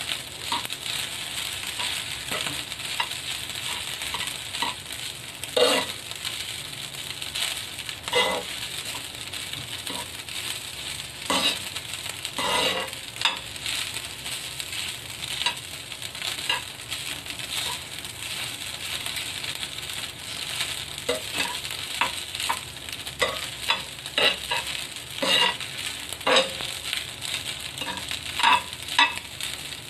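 Fried rice and egg sizzling in a cast-iron pan with a steady hiss, while a metal spoon and fork stir and scrape it, giving repeated scrapes and clinks against the pan.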